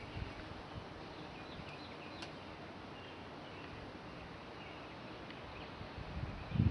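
Quiet outdoor background with faint bird chirps, a single sharp tick about two seconds in, and a low thump near the end.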